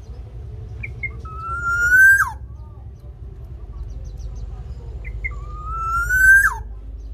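Black-naped oriole singing two whistled phrases about four seconds apart. Each opens with two short high notes, then a long whistle that rises slowly and ends in a quick downward slur.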